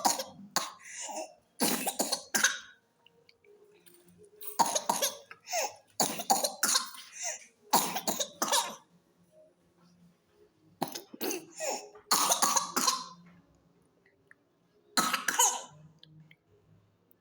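Whooping cough (pertussis) coughing: bouts of several rapid, forceful coughs in quick succession, recurring every few seconds with short pauses between them.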